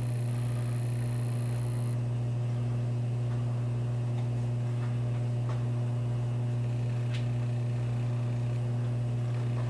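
Steady low electrical hum, with a faint high-pitched whine that cuts off about two seconds in and a couple of faint ticks.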